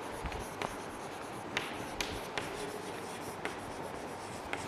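Chalk writing on a chalkboard: faint scratching of the chalk across the board with light, irregular taps as it touches down on each stroke.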